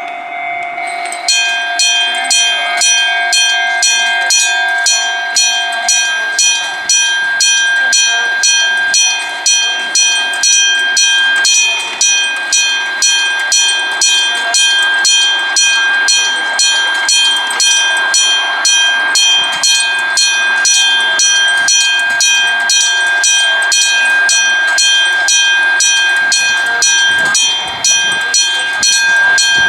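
Japanese railway level-crossing alarm bell ringing in a steady, even rhythm of a bit under two strikes a second, starting about a second in: the warning that a train is approaching.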